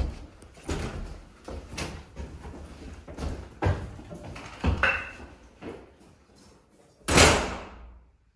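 Booted footsteps climbing wooden stairs, about two steps a second, with a short squeak about five seconds in. Near the end a door slams shut, the loudest sound, ringing out for about a second.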